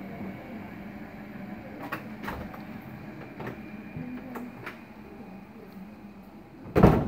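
A train's steady low hum, with a few light clicks and one loud thump near the end.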